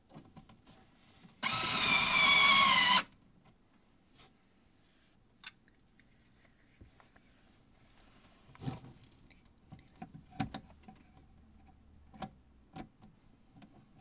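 Power screwdriver on a long extension shaft driving a screw into the plywood baseboard for about a second and a half, its motor whine wavering in pitch under load. Later a few clicks and knocks as the circuit board and screws are handled.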